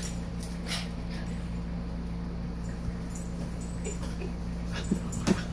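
Small dog giving a few short, rising whines in play near the end, over a steady low hum.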